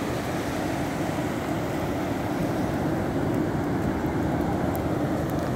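Steady rushing noise of ocean surf breaking on the shore, with a low rumble of wind on the microphone.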